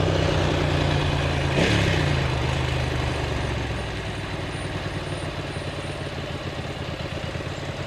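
Ducati motorcycle engine running steadily, with a short rise and fall in pitch about a second and a half in, then quieter and even, settling toward idle.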